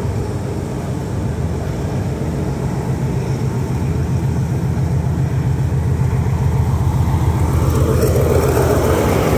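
Diesel locomotive running at low speed, a steady low engine drone that slowly grows louder as it approaches. Near the end a rushing wheel-and-rail noise rises as it draws alongside and passes close by.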